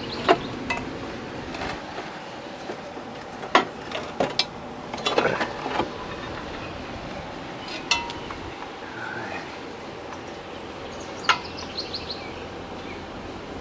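Metal hand tools and loose parts clinking and knocking against the tractor's metal frame: a scattered run of sharp clinks, with a quick cluster about five seconds in.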